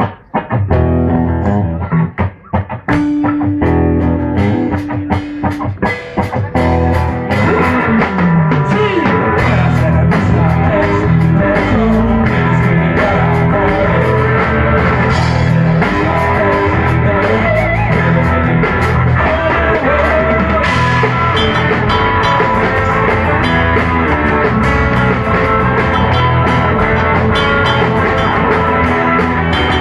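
Live rock band of electric guitar, bass guitar and drum kit starting a song: separate drum and guitar hits and one held note at first, then the full band playing together from about seven seconds in.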